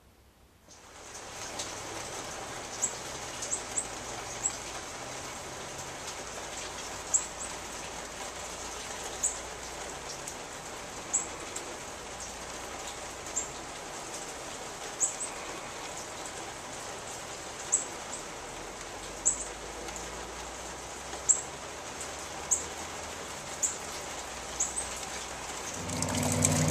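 Heavy rain falling steadily, starting about a second in, with short, sharp high-pitched clicks every second or two. Near the end, running water gushes louder.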